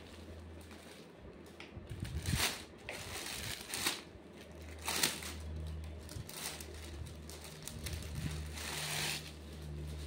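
Clear plastic packaging crinkling and rustling in several short bursts as a folded suit is handled and pulled out of it.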